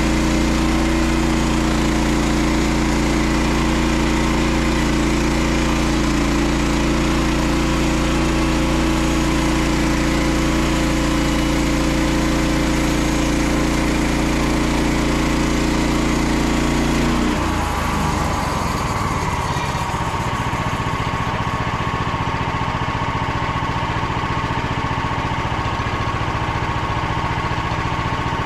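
Small petrol engine of a Frontier OS27 portable band sawmill running steadily. About two thirds of the way through, the engine note changes and a higher steady whine joins it.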